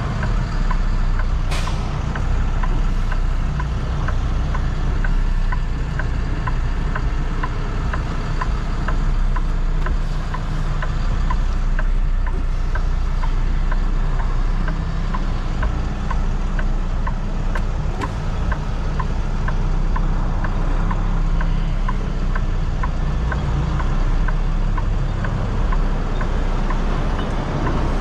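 Heavy truck's diesel engine running, heard from inside the cab as a steady low rumble, with a regular light ticking over it.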